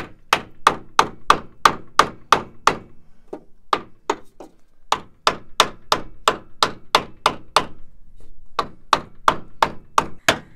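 Hammer striking a wooden block held against a plastic sway-bar frame bushing, driving the bushing into its hole in the frame. The blows come at a steady beat of about three a second, with pauses of about a second around four and eight seconds in.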